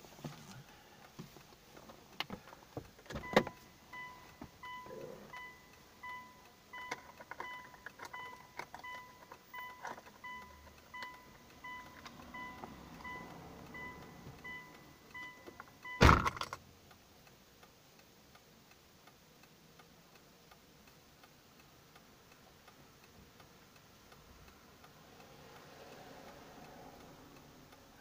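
A car door opens with a click about three seconds in, and the car's door-open warning chime then beeps steadily about twice a second. About sixteen seconds in, the door thuds shut and the chime stops.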